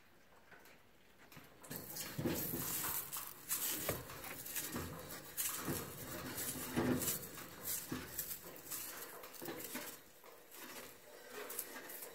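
Oiled half potato on a fork rubbed back and forth across hot gas-grill cooking grates to season them, scraping and sizzling in repeated strokes that start about two seconds in and ease off near the end.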